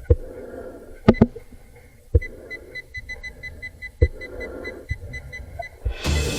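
Metal detector beeping a rapid run of short, high beeps for a few seconds from about two seconds in, signalling a metal target under the coil. A few sharp knocks come before the beeps.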